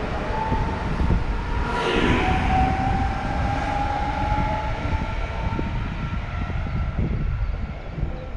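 Electric multiple unit pulling away from the station: the traction motors whine, rising slightly in pitch as it gathers speed, over rumbling wheel and rail noise that fades as the train recedes. Wind buffets the microphone throughout.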